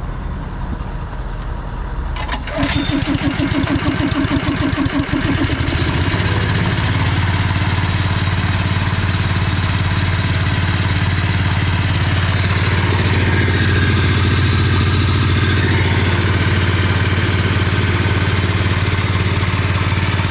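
Honda GX160 single-cylinder petrol engine on a North Star air compressor starting about two and a half seconds in. It runs unevenly for a few seconds, then settles into a steady run driving the compressor.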